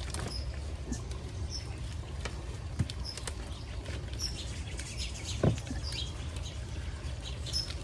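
Wet potting soil being picked and crumbled off a cactus root ball by gloved hands, with small clumps pattering down onto a plastic pot and wooden table in scattered soft ticks and rustles. Two soft thumps come about three seconds in and again about five and a half seconds in, over a steady low rumble.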